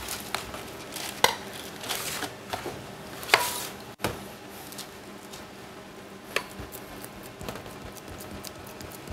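Kitchen utensil clatter: a metal spoon scraping and knocking in a steel mixing bowl, and ceramic pudding basins clinking on a stainless-steel worktop, as scattered clicks and knocks, loudest about a second in and again about three seconds in.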